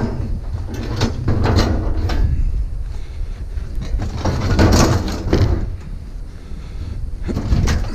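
A heavy appliance being slid and shoved across a vehicle's cargo floor: a knock at the start, then uneven scraping and rumbling surges as it is pushed in.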